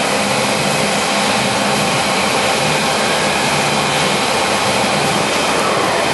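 Monarch Model 62 heavy-duty engine lathe running under power, a loud steady drone of motor and headstock gearing. Near the end a tone in it glides down in pitch.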